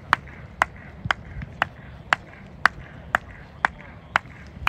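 Sharp hand claps in an even beat, about two a second, keeping time for a group warm-up drill.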